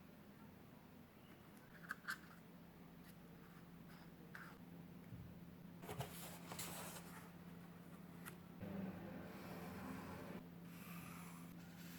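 Faint scraping and rustling of hand work on cardboard, with a few light clicks, over a steady low hum.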